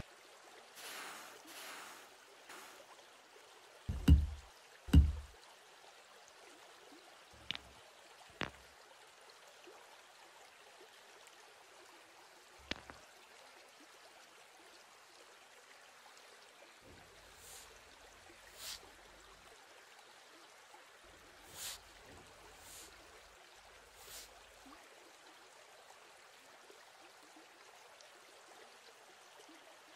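Rocks being set down to build a fire pit on sand. Two heavy thuds come about four and five seconds in, followed by a few sharp knocks of stone on stone. Later there are several short scrapes and rustles as pieces are shifted and sticks are laid, over a faint steady hiss.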